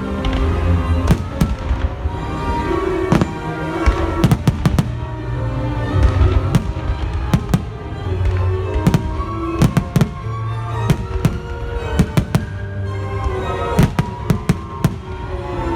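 Fireworks bursting in rapid, uneven volleys of sharp bangs, over loud orchestral-style show music played through outdoor speakers.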